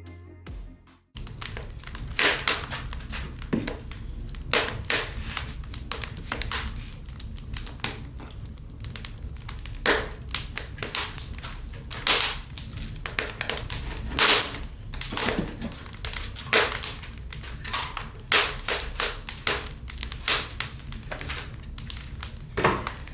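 Small objects being rummaged through and handled: irregular clicks, taps and knocks with some crinkling, over a steady low hum, starting about a second in.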